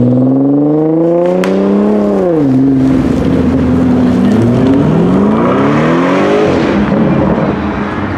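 Performance cars pulling away hard one after another. An engine note climbs for about two seconds and drops away, holds steady, then climbs again before falling off near the end.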